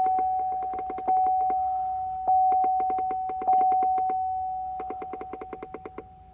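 An electronic chime dinging five times, about once every 1.2 seconds, each ding fading slowly and the last dying away near the end, with quick runs of sharp clicks between the dings.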